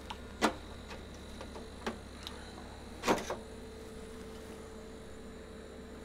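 Sharp plastic clicks and knocks as the rear grille and filter of an Ebac 3850e dehumidifier are handled and unclipped, over the steady hum of the running machine. The two loudest knocks come about half a second and three seconds in.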